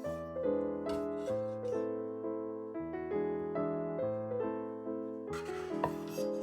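Background piano music playing a gentle melody of single notes and chords. About five seconds in, a short hiss with a sharp click comes in over it.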